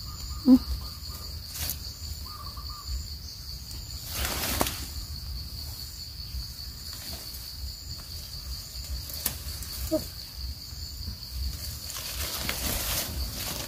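Insects droning steadily at a high pitch, with hands rustling through leafy forest undergrowth about four seconds in and again near the end.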